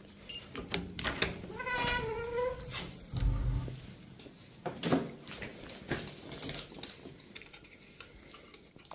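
Hotel room door with a keycard lock being unlocked and pushed open: a run of clicks and knocks from the lock and handle, a single drawn-out squeal about two seconds in, and a dull thump a little after three seconds.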